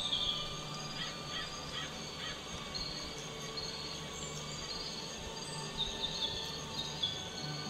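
Birds calling in short high chirps, in a cluster at the start and again near the end, over a steady, even drone of several held tones.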